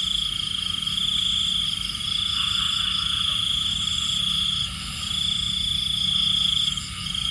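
Night chorus of calling insects: a steady, high, pulsing trill that drops out briefly twice, near the five- and seven-second marks, over a low steady hum.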